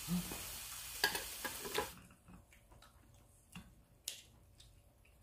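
Pork sizzling on a grill pan for about two seconds, a steady hiss that cuts off abruptly. Then scattered light metallic clicks of kitchen scissors and tongs cutting and turning the meat on the pan, the sharpest about four seconds in.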